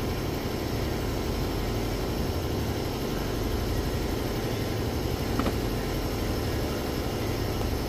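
Steady mechanical hum and hiss of running background machinery, with one faint tick about five seconds in.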